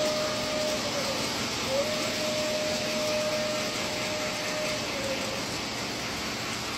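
Model train's electronic whistle sounding a short blast, then a longer one about a second later, each sagging in pitch as it ends. Under it is the steady hiss of the running train.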